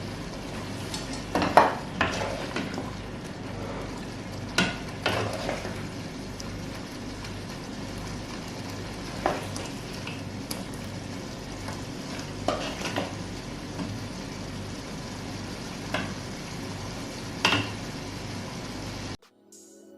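Food frying and sizzling in a pan, with a utensil scraping and knocking against it now and then as it is stirred. The sound cuts off suddenly near the end.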